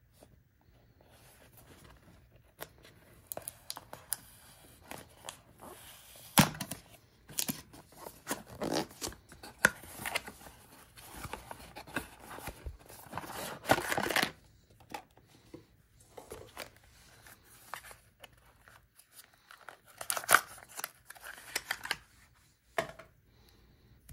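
A small cardboard product box being opened and unpacked by hand: its flaps pulled open, cardboard scraping and rustling against the contents. Irregular sharp taps and rustles come in two busy stretches, a long one through the first half and a shorter one near the end.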